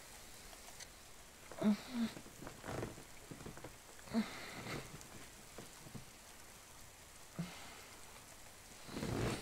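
Steady rain falling, with a few brief, soft voice sounds from a man about two and four seconds in, and a short rustling swell near the end.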